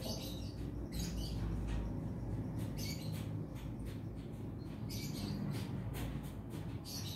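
Short high-pitched animal chirps, about five of them a second or two apart, over a low steady background hum.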